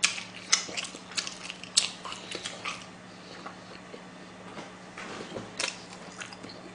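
Close-miked chewing of spicy seasoned whelk (golbaengi muchim): wet mouth smacks and crunchy clicks come irregularly, thickest in the first few seconds with another cluster near the end.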